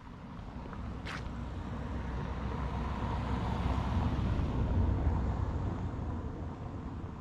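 A car driving past: engine and tyre noise that swells to a peak about four to five seconds in, then fades away. A short, sharp high sound about a second in.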